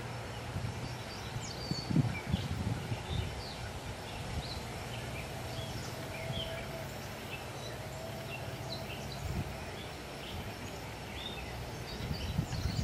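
Outdoor ambience: a steady low rumble with many short bird chirps scattered throughout.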